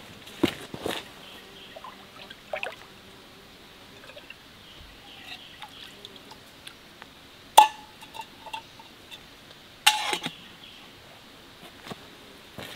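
A small metal kettle dipped and filled in a shallow rocky stream, water pouring and dripping off it, with footsteps on wet stones and a few sharp knocks. The stream trickles faintly underneath.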